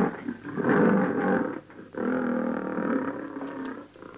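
Lion roaring: two long roars, the second beginning about two seconds in.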